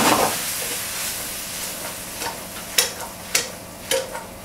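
Vegetables and tender wheat sizzling in a frying pan of olive oil just deglazed with white wine, the hiss strong at first and fading over the first second. In the second half the pan is tossed, with about four sharp knocks roughly half a second apart.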